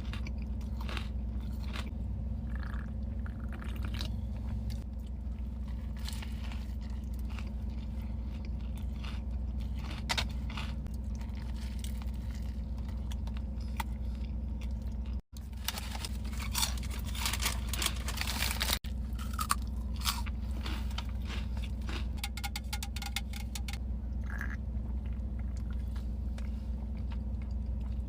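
A person chewing and crunching food close to the microphone, with scattered mouth clicks and a denser run of crisp crunching a little past the middle.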